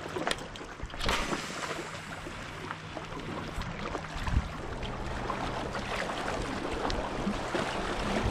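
Wind buffeting the microphone and small waves lapping against shoreline rocks, over a faint steady low hum. A brief sharp swish comes about a second in.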